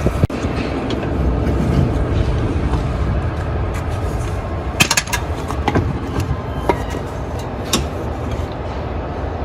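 Steady low vehicle rumble, with a few sharp metallic clicks and clinks about halfway through and a few more after.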